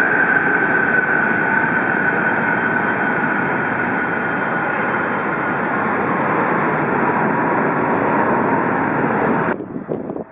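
Jet airliner engines: a loud, steady roar with a high whine that drifts slightly lower in pitch, cutting off suddenly near the end.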